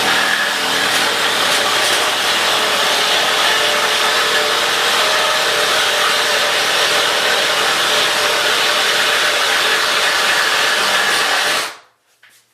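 Reciprocating saw (Sawzall) running steadily while it cuts, then stopping suddenly near the end.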